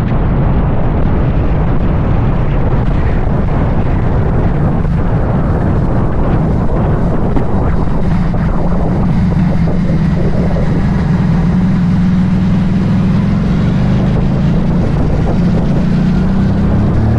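Keeway Buccaneer 250i v2 motorcycle engine running under way, with wind noise on the microphone. The engine note is steady, rising slightly near the end.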